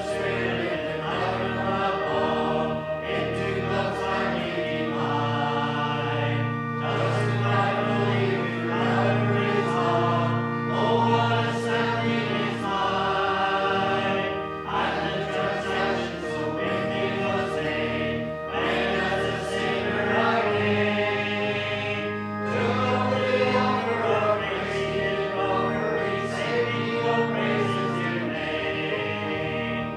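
Church congregation singing a hymn together, with sustained instrumental accompaniment underneath.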